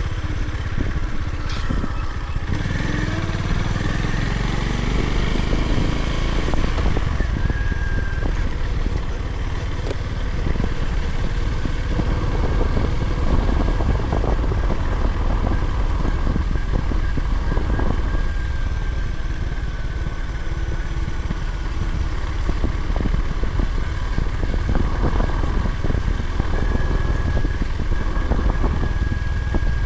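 Honda GB350's air-cooled single-cylinder engine running steadily under way, with road and wind noise.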